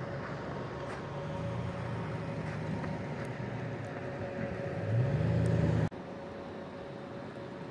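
A 2020 Chrysler Pacifica AWD minivan's 3.6-litre V6 engine running as the van drives on packed snow. It revs up with a rising pitch about five seconds in, then cuts off suddenly, leaving a quieter steady hiss.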